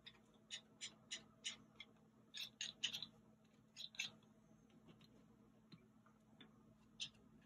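Faint, irregular light clicks and taps of a small tool and parts against a plastic RC car gearbox housing while grease is dabbed on. The clicks come thickest in the first four seconds, with one more about seven seconds in.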